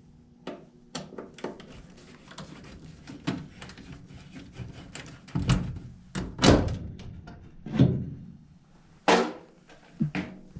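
Irregular knocks and thumps, with several louder ones in the second half.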